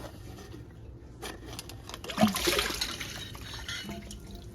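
Water splashing and trickling for about a second, starting about two seconds in, as a countertop water filter's plastic housing is unscrewed, after a few light plastic clicks.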